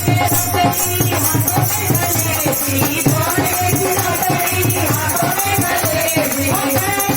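Hindi devotional Krishna bhajan music: a wavering melody over a steady drum beat, with shaken jingling percussion throughout.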